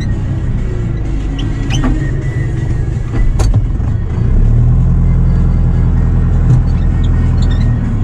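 Diesel engine of a Fendt tractor running steadily under load, heard inside the cab while it pulls a manure spreader. It gets louder a little over four seconds in, with a couple of sharp knocks and rattles in the first half.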